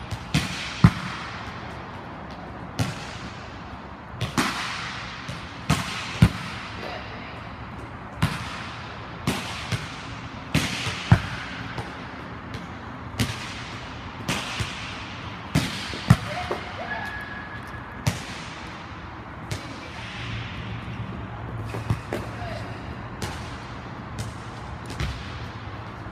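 Volleyballs being hit in a defensive digging drill: sharp slaps of the coach's hand striking the ball and the player's forearm passes, with balls bouncing on the court. They come about once a second, each with a long echo in the large domed hall.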